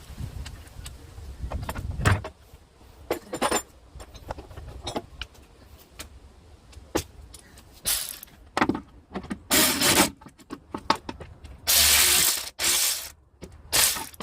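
Metal hand tools and engine parts clinking and rattling, with scattered sharp clicks and a few short bursts of rapid clicking, as of tools being handled while the timing cover bolts are tightened.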